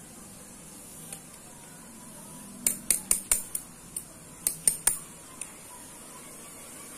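A thin rod clicking and tapping sharply against ceramic floor tiles, about ten light strikes in two bunches, starting a few seconds in.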